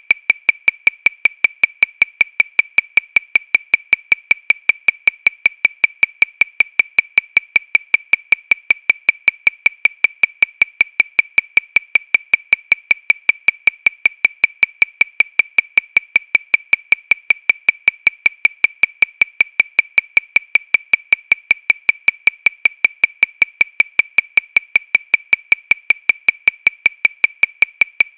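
Metronome clicking steadily at 314 beats per minute, a little over five short, high-pitched clicks a second, all the same and unaccented.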